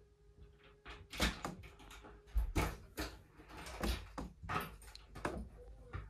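A run of irregular knocks and thumps, about a dozen over five seconds, starting about a second in, then an abrupt cut to silence just after the end.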